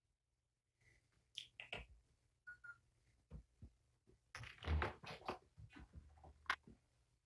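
Faint rustling and light clicks of handling, clothing and fur shifting as a kitten is cuddled against a man's chest. It grows denser a little past halfway, and there is one sharper click near the end.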